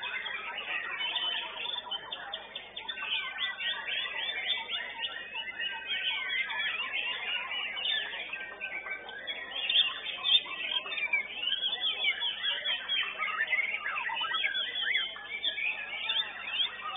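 White-rumped shama (murai batu) singing in competition: a fast, unbroken stream of varied whistles, chirps and quick rising and falling notes.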